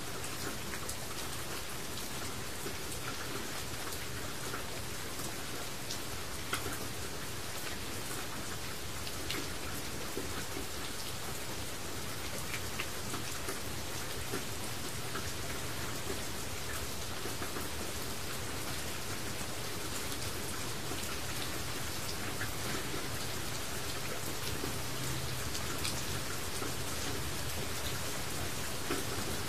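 Steady rain falling: an even hiss with many separate drops ticking on a surface.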